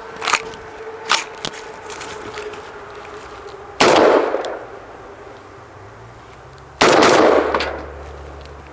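HM Defense AR-15 rifle firing two shots about three seconds apart, each with a long echoing tail, after a few light metallic clicks of handling. The rifle is firing after being left frozen in the snow for hours.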